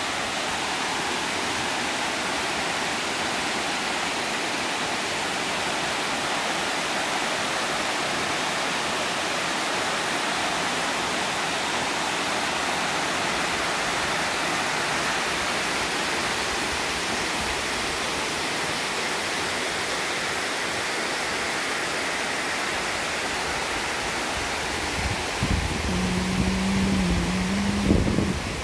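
Water overflowing a masonry dam spillway and pouring down its sloping face, a steady even rushing. Near the end, low rumbles and a brief low hum come in on top of it.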